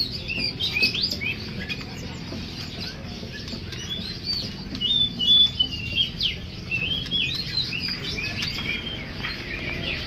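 Many caged songbirds chirping and calling over one another, a dense mix of short rising and falling whistled notes, busiest around the middle.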